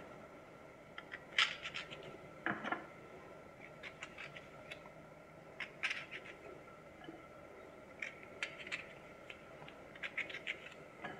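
Faint, scattered light clicks and taps, a second or more apart, from vegetables and a knife being handled on a ceramic plate.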